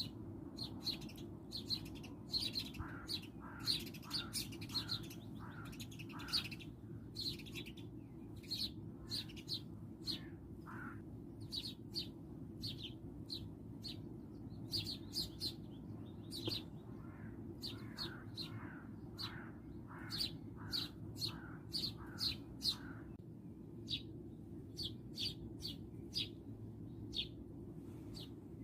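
Garden birds chirping: a run of short, high chirps repeating several times a second, joined at times by a second bird's lower, down-sliding notes, over a steady low background rumble.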